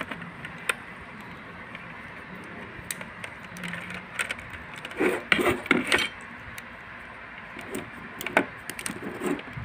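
Scattered clicks and clatter of multimeter test probes and a metal-can run capacitor being handled on a table, with a cluster of louder knocks about five to six seconds in.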